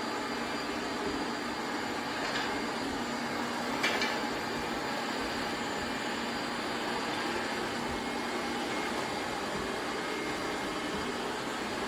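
Robot vacuum cleaner running: a steady whir from its suction motor and brushes, with a brief click about four seconds in.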